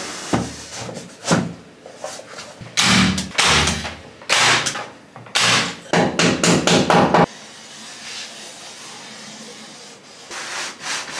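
Hammer knocking on MDF tongue-and-groove wall panelling, in clusters of bangs that stop abruptly about seven seconds in. Only low room noise follows, with one soft burst near the end.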